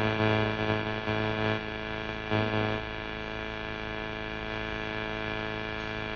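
Steady electrical mains hum with many overtones, from the recording's sound system. It is a little louder for the first three seconds or so, then holds level.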